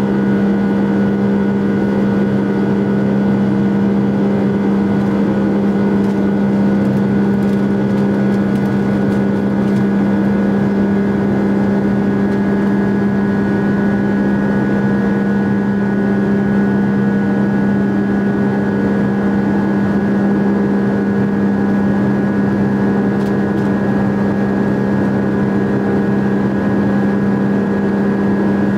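Boeing 757-200's turbofan engines heard from inside the cabin over the wing during the climb after takeoff: a loud, steady drone with a strong low hum and fainter higher whining tones over a rush of air.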